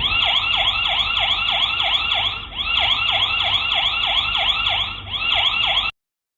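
Ezviz H8C Wi-Fi security camera's built-in siren sounding its alarm, as set off by motion detection: a loud electronic yelp of rapid falling sweeps, about five a second. It dips briefly twice and cuts off suddenly near the end.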